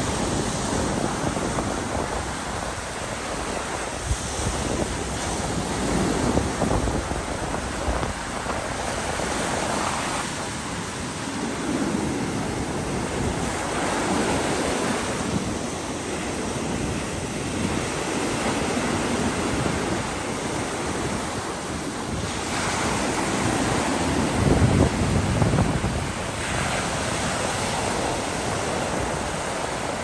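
Ocean surf breaking on a sandy beach: a continuous wash of waves rolling in and running up the shore, swelling and ebbing every few seconds, with one louder break about three-quarters of the way through.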